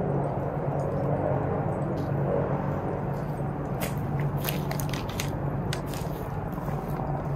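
A steady low hum, with a cluster of short light clicks and crackles about four to five seconds in.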